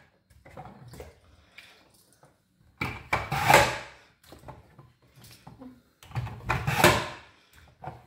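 Raw potatoes being pushed through the blade grid of a lever-press fry cutter, twice, about three seconds apart, each press lasting under a second. Light knocks and clicks of the plastic cutter and potato pieces between the presses.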